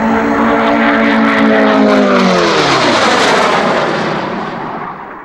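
Gloster Meteor twin-jet flying past: the steady whine of its jet engines drops in pitch about two and a half seconds in as the aircraft passes, leaving a loud, broad roar that then fades away.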